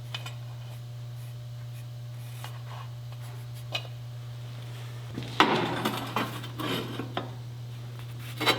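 Steel pieces handled and test-fitted: scattered clinks and knocks, then a busier stretch of metal clattering and scraping about five seconds in, over a steady low hum.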